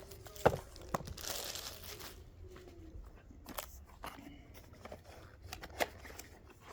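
Screwdriver-set packaging being handled, with a stretch of rustling about a second in and several sharp clicks, the loudest about half a second in, as screwdrivers are worked in and out of their holders.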